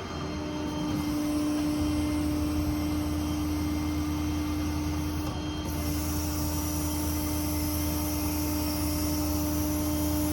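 A Ford 6.7 Power Stroke diesel engine running steadily while a hydraulic system makes a constant whine as the Stellar 7621 service crane is worked. A high hiss joins about halfway through.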